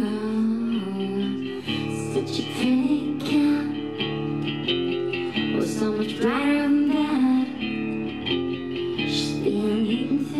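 A rock band playing live: electric guitar over drums with cymbal hits, and a woman singing.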